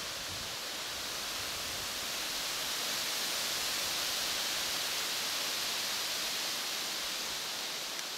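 Wind rustling through foliage, a steady hiss that swells a little in the middle and eases off near the end.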